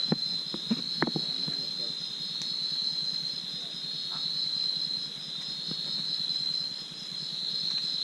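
Steady, high-pitched chorus of night insects trilling without a break, with a few light clicks and rustles in the first second or so.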